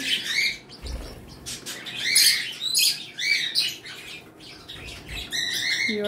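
Small pet parrots chirping and squawking, a series of short, high, arched calls that overlap, busiest around two to three seconds in and again near the end.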